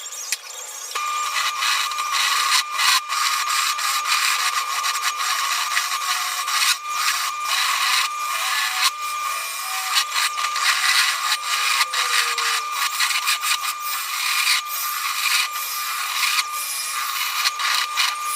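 Turning tool cutting into a spinning ash bowl blank on a wood lathe: a steady scraping hiss of the cut over a constant high whine, starting about a second in and broken by brief gaps where the tool lifts off the wood.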